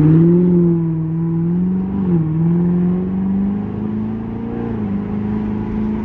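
Car engine under hard acceleration, heard from inside the cabin. Its pitch has just climbed and now holds nearly level, with short dips about two seconds and five seconds in, and the level eases off as it settles into a cruise.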